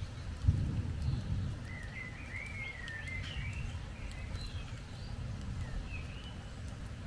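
Low rumble of thunder, swelling about half a second in, with a songbird warbling over it in short phrases.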